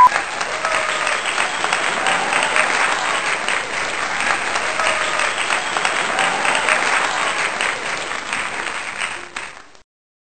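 Crowd applauding: a dense, steady clatter of many hands clapping, with a few faint voices or whistles in it, fading out near the end.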